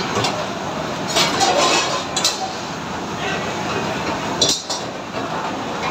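Metal spatula clinking and scraping against a large cooking pan on a gas range, a few sharp clinks about a second in, near two seconds and again past four seconds. Under it a steady rushing noise from the kitchen's gas burners and exhaust hood.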